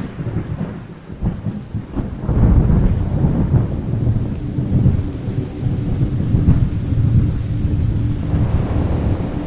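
Thunder rumbling on and off over steady rain, swelling and fading in long waves. A faint steady tone comes in about halfway through.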